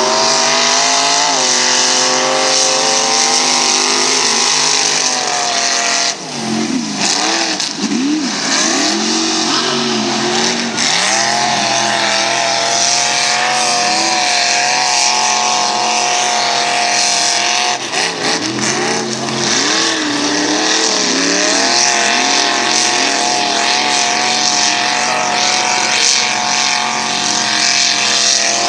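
Two mud-racing pickup trucks running at full throttle through a mud pit, engines held at high revs. Twice the engine pitch swoops rapidly down and up as the tires spin and catch in the mud.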